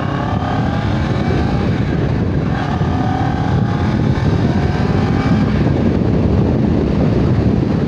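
CF Moto 650GT's parallel-twin engine accelerating hard from a ride-off, its pitch rising in several successive pulls as it is shifted up through the gears.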